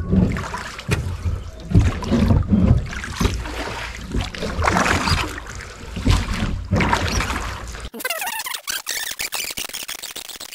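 Water splashing and trickling as a small boat is rowed along, with irregular low rumbling bumps on the microphone. About eight seconds in the sound drops abruptly to fainter dripping and clicks.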